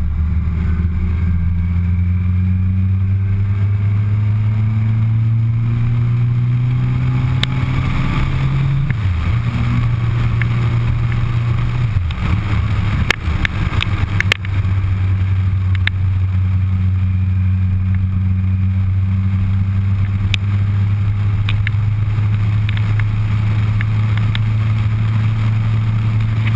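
Suzuki Hayabusa's inline-four engine running under way, its note rising steadily for the first several seconds as the bike accelerates. A little before the middle the pitch dips and recovers twice, with a few sharp ticks, and then it holds a steady drone at cruising speed.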